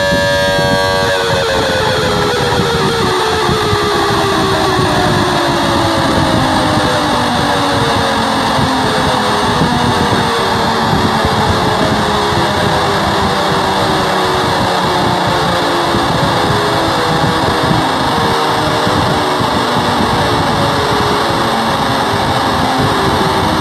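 Distorted, noisy emergency-alert-style alarm audio: a dense held chord of tones stops about a second in, then several tones slide slowly downward in pitch over a steady hiss.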